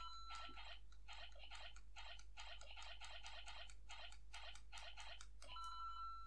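Faint electronic ticking from the Lego Luigi interactive figure's small speaker, about four to five quick ticks a second, then a steady electronic tone about five and a half seconds in.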